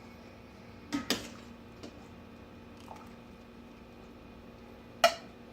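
Cookware clinking as blanched broccoli is lifted out of a pot: a quick double knock about a second in, a couple of faint taps, and a sharp clack near the end, over a faint steady hum.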